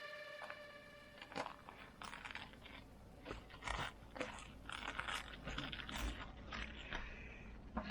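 Irregular short crunches and clicks, a couple of dozen scattered across several seconds at a low level.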